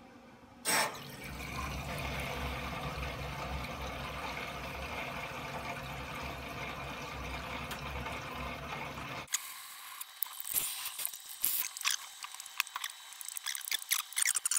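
A click, then a pump running steadily with a low hum and the rush of water, as water and trapped air are pushed through copper pipework and a plate chiller. About nine seconds in this cuts off suddenly and gives way to irregular drips and trickles of water into a plastic tub.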